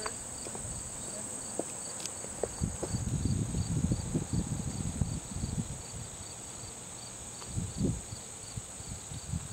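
Late-summer insects: a steady high-pitched drone with a cricket chirping in an even rhythm, about three chirps a second. Low rumbling noise on the microphone comes in for a few seconds from about three seconds in, and briefly again near the end.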